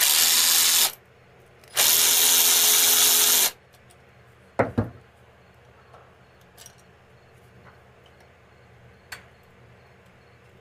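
Electric ratchet spinning a bolt out in two short runs, the second about a second and a half long and slowing as it stops. Then two sharp knocks and a few light ticks of the bolt being handled.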